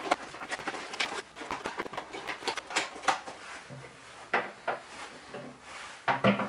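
Handling sounds of packing an item back into its box: an irregular run of light clicks, knocks and rustles, with a couple of sharper knocks near the end.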